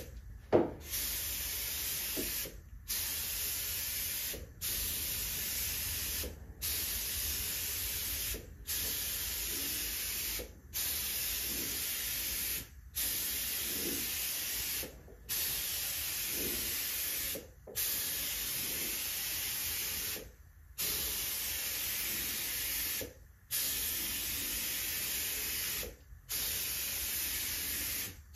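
Air spray gun spraying primer, hissing in a dozen or so passes of about two seconds each, as the trigger is pulled and released with short gaps between. There is a light knock about half a second in.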